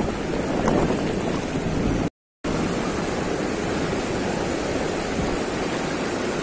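Fast river current rushing steadily over a concrete weir apron and churning into whitewater. The sound cuts out briefly about two seconds in.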